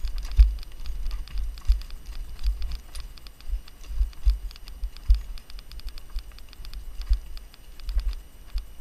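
Mountain bike rolling fast down a dirt singletrack: a dense, irregular clatter of clicks and rattles from the bike, over low thumps as it rides over bumps.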